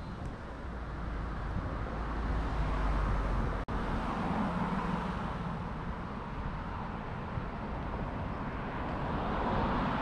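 Road traffic: cars passing on a city street, swelling a couple of times as vehicles go by, under a low rumble of wind buffeting the microphone. The sound cuts out for an instant about three and a half seconds in.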